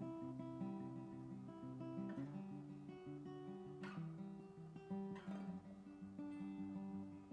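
Background music on acoustic guitar: picked notes ringing over each other, with a few strummed chords.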